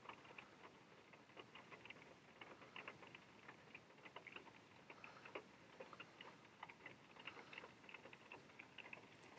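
Faint, irregular light clicks and taps as a cat paws at a dangled watch.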